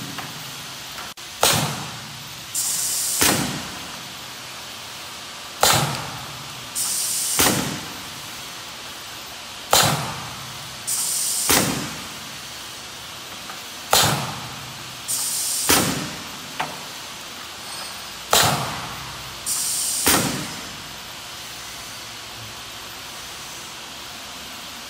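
Pneumatic heads of a semi-automatic bag-on-valve aerosol filling machine cycling. Each cycle is a sharp air-cylinder stroke, then about a second later a short high hiss of compressed air that ends in another sharp stroke. Five cycles come about four seconds apart, then only a steady background hum for the last few seconds.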